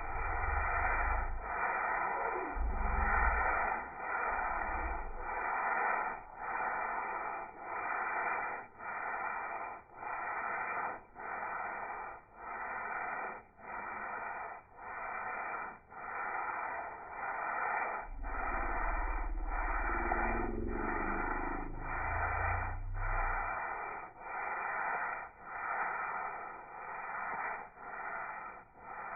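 Sandpaper rubbed by hand back and forth over a wooden box's cured urethane finish, a rasping scrape in a steady rhythm of about one stroke every three-quarters of a second. This is sanding between coats, which scuffs the polyurethane white.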